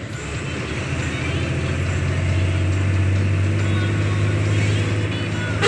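Truck engine running with a steady low drone that grows a little louder over the first few seconds.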